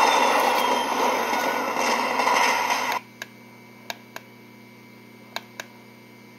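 Fireworks sound effect from a Lionel O gauge fireworks store accessory: a dense crackling hiss that cuts off suddenly about halfway through, leaving a few faint sharp ticks.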